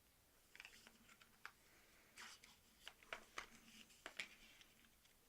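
Faint handling of AirPods packaging: a string of light clicks and short cardboard-and-paper rustles, the sharpest about three to four seconds in.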